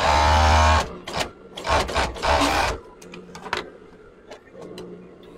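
Industrial overlock machine (serger) running in two short bursts as it stitches a denim seam, the first under a second long, the second about two seconds in and lasting about a second. Then only a few faint clicks as the fabric is handled.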